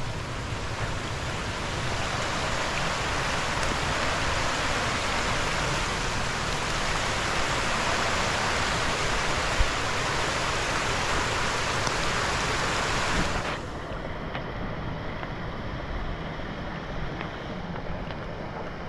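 Steady rushing hiss of a small woodland stream's running water, which drops away abruptly about thirteen seconds in, leaving a quieter, duller hiss.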